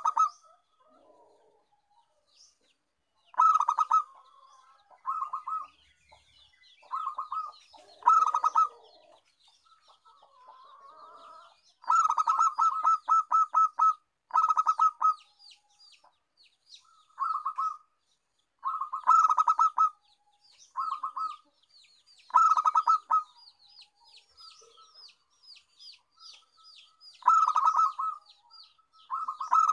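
Zebra dove (perkutut) cooing: about a dozen short bursts of quick, stuttering coos, with a faint, rapid high chirping of small birds between the phrases.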